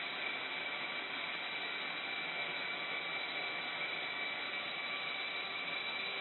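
Logosol PK1500 stack cutter sawing steadily down through a stack of boards: its 3/8" cross-cut chain on a long guide bar, driven by a 5 kW three-phase electric motor, giving an even rushing noise with a steady high whine.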